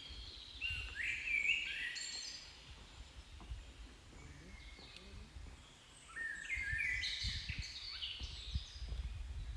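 A songbird singing two bursts of quick, stepping chirps, one in the first couple of seconds and another from about six seconds in, over a low, uneven rumble.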